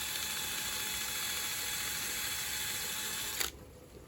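A small power tool runs steadily, cleaning rust off the metal bore that the new roll bar bush will be pressed into. It stops suddenly about three and a half seconds in.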